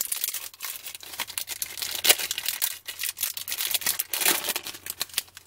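A foil trading-card pack (1994 Classic Images football) being torn open and crinkled by hand: a run of sharp crackles and rips, the loudest about two seconds in.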